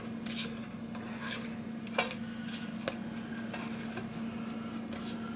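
Dried ancho chilies being dry-toasted, pressed down and shifted against a hot dry skillet: irregular dry scraping and rustling, with two sharper knocks about two and three seconds in. A steady low hum runs underneath.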